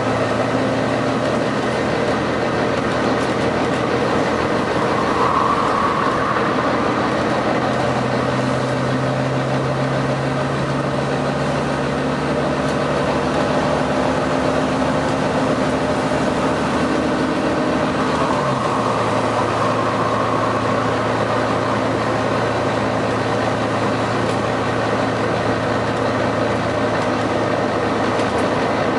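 Volvo B9TL double-decker bus's diesel engine running under way, its note stepping down in pitch about a second in and again past the middle, over steady road and body noise.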